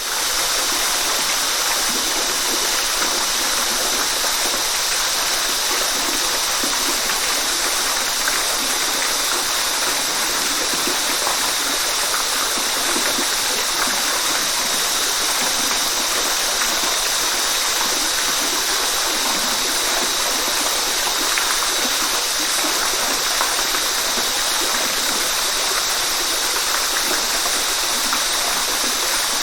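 Waterfall: steady rushing, splashing water, an even hiss that stays the same throughout, with little deep rumble.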